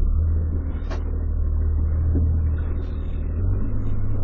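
Small fishing boat's engine running at low revs, a steady low rumble whose note shifts a little twice. A short sharp tap about a second in.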